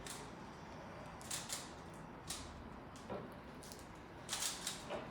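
Rubik's cube being turned by hand to solve its first two layers: short plastic clicking turns in small groups, with pauses between them while the solver looks for the next move.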